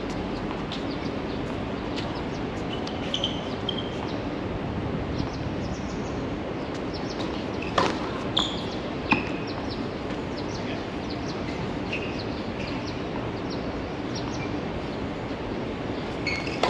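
Tennis ball struck by rackets in a rally on a hard court, with a few sharp hits about halfway through. Steady background hum throughout, with short high chirps scattered through it.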